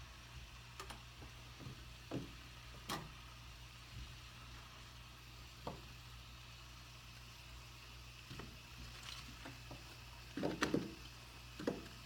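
Scattered light knocks and taps, as of things being handled and set down, with a close cluster near the end, over a steady low hum.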